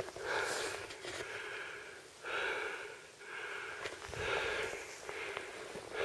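A man breathing hard and audibly, in and out about once a second, from the effort of wading through waist-deep snow.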